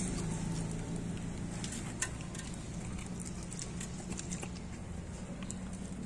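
A dog chewing and smacking on pieces of roast pork from a metal bowl: an irregular run of small clicks, one sharper about two seconds in, over a steady low hum.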